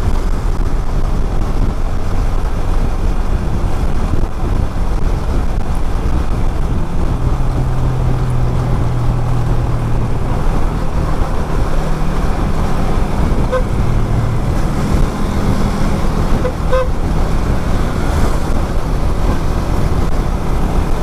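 Riding a motorcycle in traffic: heavy wind buffeting on the microphone over the engine running and the road noise of surrounding vehicles, with a few short horn toots about two-thirds of the way through.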